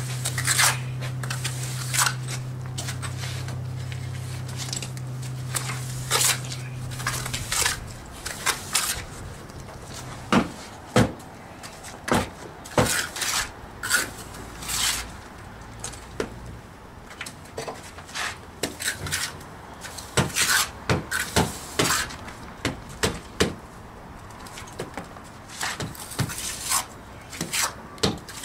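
Irregular short scrapes and clinks of hand tools working wet cement mortar, at the wall and in a steel wheelbarrow. A steady low hum runs under them for the first seven seconds or so, then stops.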